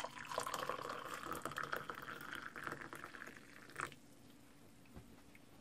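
Hot water poured from a kettle into a ceramic mug, the pitch of the pour rising as the mug fills. It stops about four seconds in.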